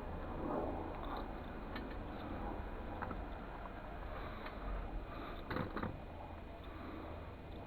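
A few light knocks and clicks from handling objects over a steady low rumble, with a small cluster of knocks about five and a half seconds in.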